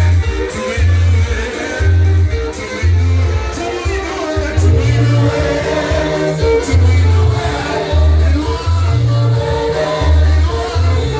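Live praise and worship music: singing over a band with a strong, pulsing bass line.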